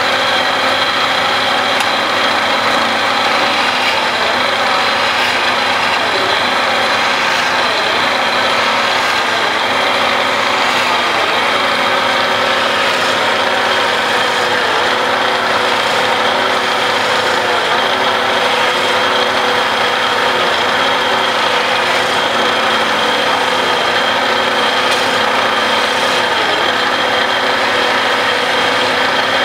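A wood lathe runs steadily, spinning a sofa-leg blank, while a hand-held turning chisel scrapes and cuts into the wood. The machine's hum holds a steady pitch under a constant rasping cutting noise.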